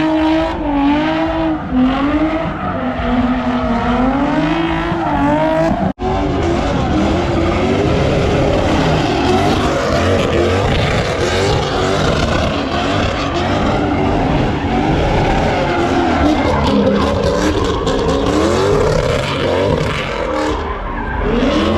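A car doing donuts: its engine revs rising and falling, then after a cut about six seconds in, a steady roar of engine and squealing, skidding tyres.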